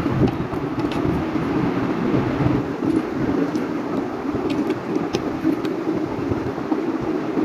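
A steady low rumbling noise throughout, with a few light clicks as plastic building bricks are handled and set down on a glass tabletop.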